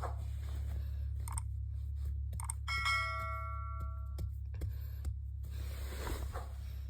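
A single electronic chime, several pure tones sounding together and fading out, about three seconds in. Scattered sharp clicks are heard around it, all over a steady low hum.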